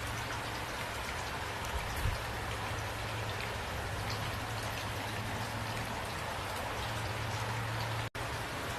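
Steady rain falling and pattering on surfaces, with a steady low hum underneath. The sound cuts out completely for a split second near the end.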